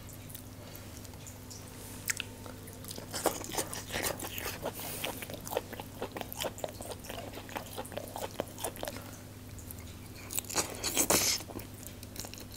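A person eating chicken on the bone with their fingers: a string of small wet clicks and smacks as meat is pulled off the bones in gravy and chewed, with a louder run of biting and sucking about eleven seconds in.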